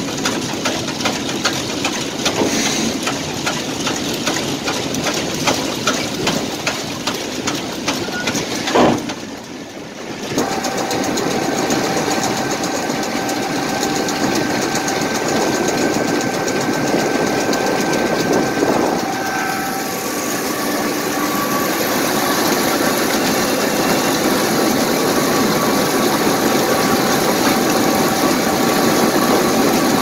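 A sugar beet piler running: a steady machinery drone and the rattle of beets tumbling through the hopper and over the rollers. The sound breaks off and changes briefly about nine seconds in, and shifts again near twenty seconds.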